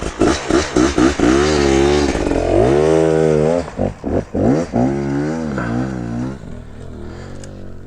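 Dirt bike engine revving hard, in short throttle blips and then longer pulls whose pitch rises and falls, dropping away after about six seconds.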